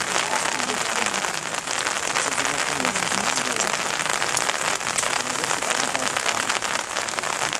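Steady rain falling, a dense hiss of drops with many small individual drop ticks.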